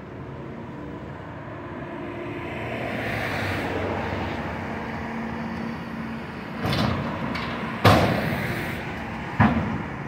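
Hitachi excavator's diesel engine running steadily as it tears at a building, with a swelling rush of scraping debris, then three loud crashes of falling wreckage, the loudest about eight seconds in.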